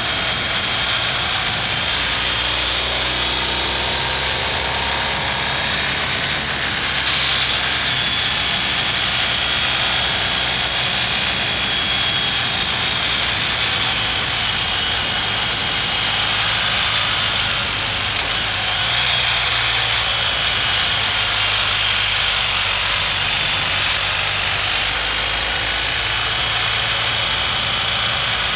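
BMW R1250 GS Adventure's boxer-twin engine running steadily while riding, mixed with wind noise, its pitch shifting now and then.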